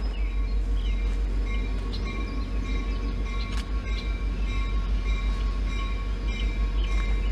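Steady low rumble of a diesel locomotive working out of sight, with a few short bird chirps.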